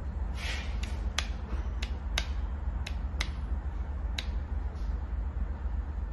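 Sharp clicks of toggle switches on a hand-held RC transmitter being flicked, about seven in all and spaced roughly half a second apart, over a steady low hum.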